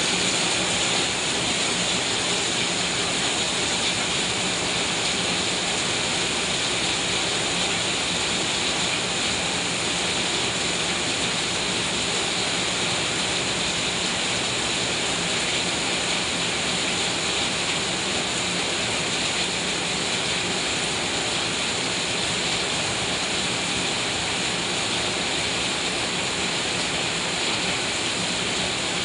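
Heavy rain pouring steadily onto a sheet roof overhead and onto broad banana and coconut palm leaves, with runoff streaming off the roof edge.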